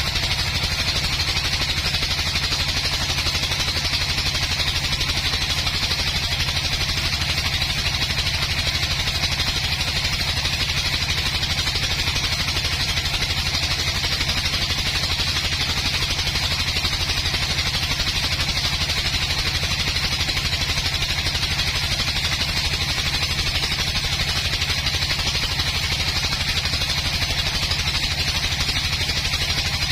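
An engine running steadily at constant speed, with no rise or fall in pitch.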